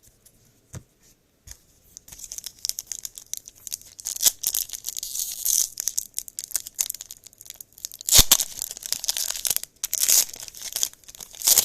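Wrapper of a baseball trading card pack being torn open and crinkled. After a couple of faint clicks, a dense crackle begins about two seconds in, with several louder rips.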